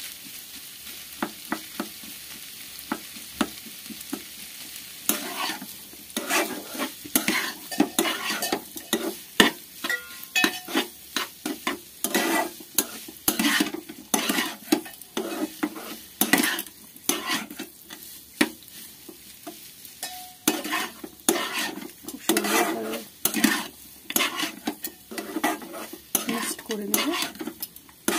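A metal spatula scraping and pressing against a nonstick pan as it stirs and mashes a thick beetroot and potato mixture. The strokes are irregular, a couple a second, starting about five seconds in, over a faint sizzle.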